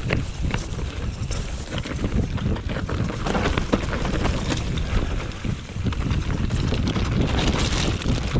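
Mountain bike riding fast over a loose, rough dirt trail: wind rumbling on the action camera's microphone over the tyres' roll, with frequent sharp clicks and knocks of the bike rattling over bumps.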